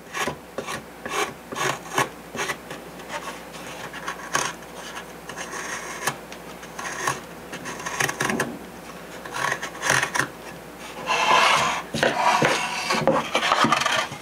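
Hobby knife shaving and carving the corners off a wooden chin block: a run of short scraping cuts through the wood, with longer, louder scraping strokes about eleven seconds in and again near the end.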